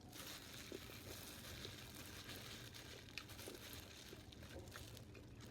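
Faint eating sounds: a few soft clicks and crinkles over a steady low hiss.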